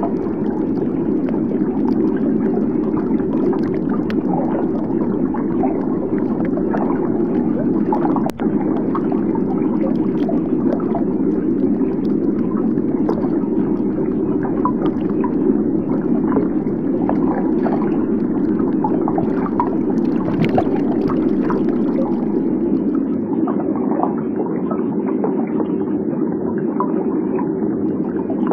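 Steady low rushing and gurgling underwater noise, with faint scattered clicks and a brief break about eight seconds in.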